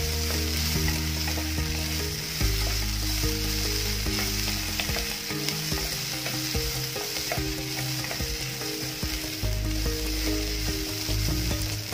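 Chopped onions and peanuts sautéing in coconut oil in a nonstick pan, a steady sizzle while a wooden spatula stirs and scrapes them.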